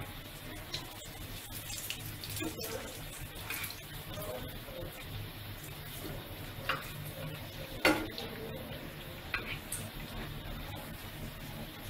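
Potato chops coated in gram-flour batter deep-frying in a pan of hot oil: a steady bubbling sizzle with scattered small pops and clicks, and one sharper click about eight seconds in.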